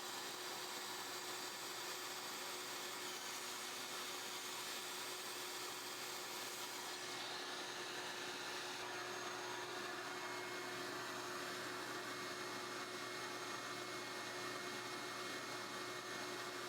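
Prometheus desktop PCB milling machine's high-speed spindle running steadily while it drills alignment-pin holes in copper-clad board: a steady hiss with a faint whine, the higher part of the sound dropping a little about seven seconds in.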